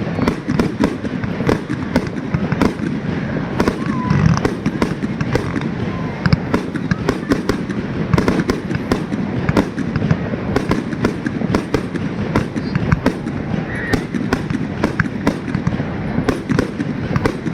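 Fireworks going off in rapid succession: a dense, unbroken run of sharp cracks and bangs, many every second.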